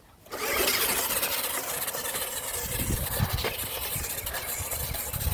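Radio-controlled car running: a steady motor noise that starts abruptly about a quarter second in.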